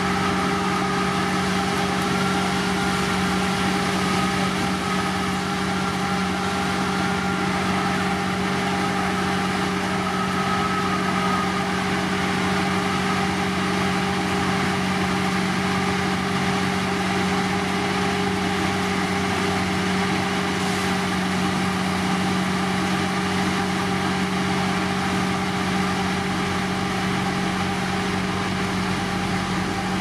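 Diesel engine of a heavy road-construction machine running steadily at a constant speed. A faint wavering whine sits above it for roughly the first twelve seconds.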